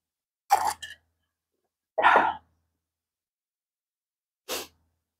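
Short throat and breath sounds from a woman just after a drink of water: three brief breathy bursts about two seconds apart, the last one softer.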